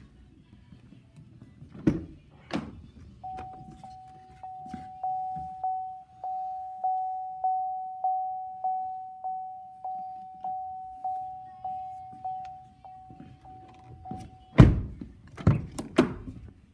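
GMC Sierra 2500 HD Denali cab door: latch clicks, then the truck's door-open warning chime dings steadily, about one and a half times a second, for around eleven seconds. It stops when the door is slammed shut with a loud thunk, the loudest sound, followed by a couple of lighter knocks.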